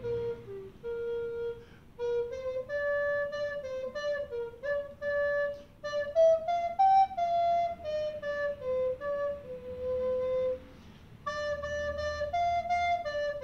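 A wooden recorder playing a slow single-line melody of held notes that climbs to a high point near the middle and steps back down. The tune breaks for short breaths between phrases and pauses briefly a little before the end.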